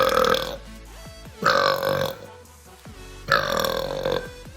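Loud, drawn-out human burps: one ending about half a second in, a second about a second and a half in, and a longer third about three seconds in.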